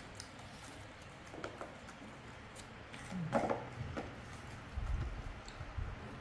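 Small macaques eating fruit slices from a plastic plate: faint clicks and rustles, a short rising sound about three seconds in, and low thumps near the end.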